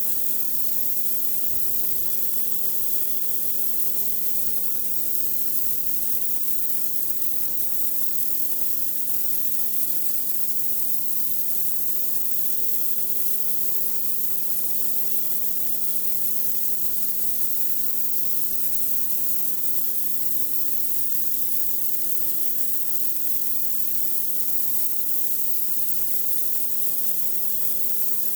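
Pressure washer running steadily: a loud, even hiss of high-pressure water spraying onto concrete over the steady hum of the machine.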